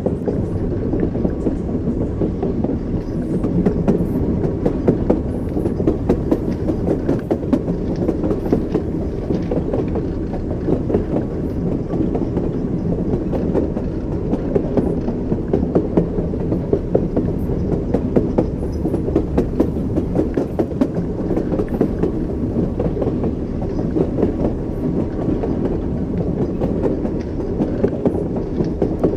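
Train wheels running over rail joints: a steady rumble with a clickety-clack of wheel beats.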